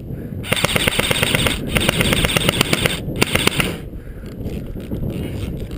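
Airsoft gun firing on full auto: three long bursts of rapid, evenly spaced mechanical clicks, with short breaks between them.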